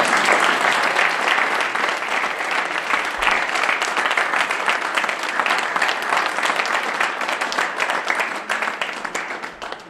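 Audience applauding: a dense spell of many hands clapping that starts suddenly and thins out near the end.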